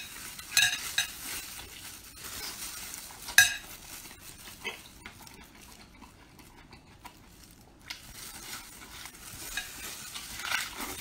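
Close-up eating sounds of a person biting, sucking and chewing on braised pork large intestine: sharp lip smacks and mouth noises, the loudest about three and a half seconds in, a quieter stretch midway, then more soft chewing near the end.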